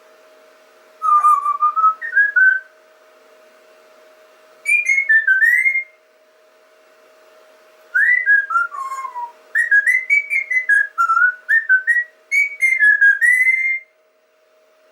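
Whistling in short melodic phrases of quick gliding notes, four phrases with pauses between them, over a steady faint hum.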